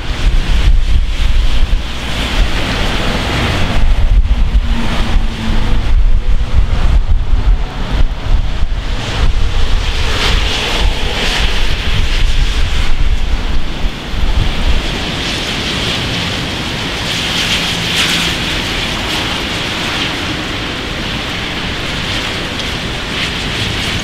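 Storm wind buffeting the microphone over heavy rain, in strong uneven gusts for the first half; about fifteen seconds in the gusts die down and a steady rush of rain is left.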